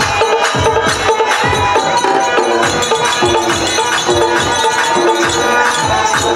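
Bayalata folk-theatre music: a steady run of drum strokes over held harmonium notes that shift to a new pitch about two and a half seconds in, with metallic jingling.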